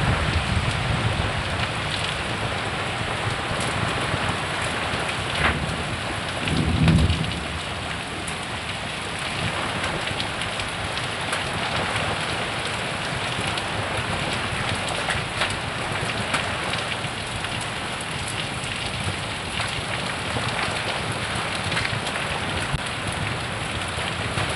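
Heavy rain falling steadily, a dense hiss of many drops hitting surfaces. A short low rumble comes about seven seconds in.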